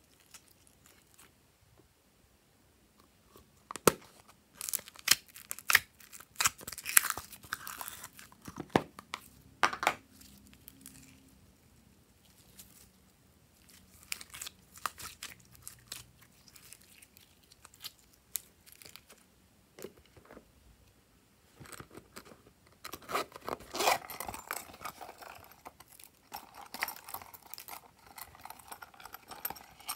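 Glossy glitter slime squeezed and kneaded by hand, giving irregular sticky crackles, clicks and small pops. The crackles come thick in two stretches, about 4 to 10 seconds in and again from about 22 seconds in, with a sparser, quieter spell between.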